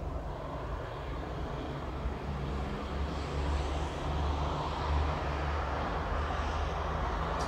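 Steady low rumble and hiss of outdoor road traffic, swelling a little about halfway through as a vehicle passes.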